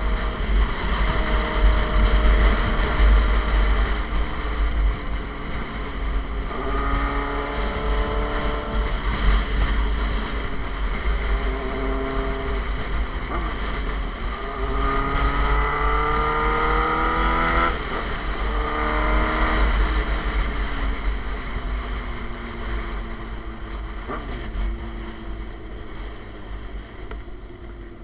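Suzuki GSX-R sport bike's engine through an SC Project aftermarket exhaust, accelerating hard in several rising runs through the gears, then easing off and winding down near the end. Heavy wind buffeting on the microphone throughout.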